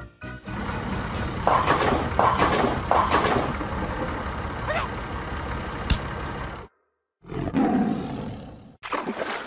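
Cartoon sound effect of a roar-like noise, with three louder surges in a row about a second and a half in, that breaks off abruptly near the end and is followed by two shorter noisy sounds.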